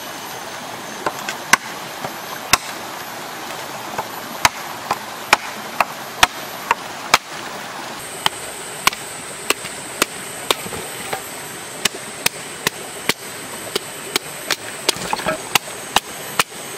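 Sharp wooden knocks, irregular at about one to two a second: a large machete-type blade chopping wood and being batoned, its spine struck with a wooden stick, to split a short log.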